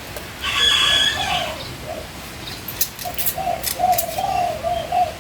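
A bird cooing, a run of short low notes repeated through the second half, with a louder, higher call about half a second in and a few sharp clicks around three seconds in.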